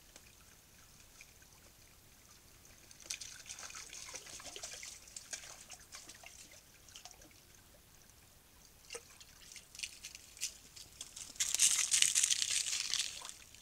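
Raccoons wading through a shallow stream, shallow water splashing and dripping in two spells, the louder one near the end.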